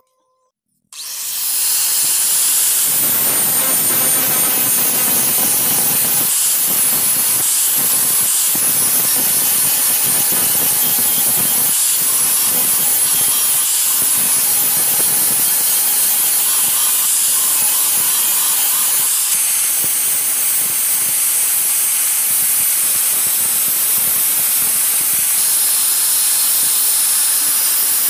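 Angle grinder running with its disc pressed against a forged spade blade, grinding the steel: a steady, loud, high hiss that starts about a second in.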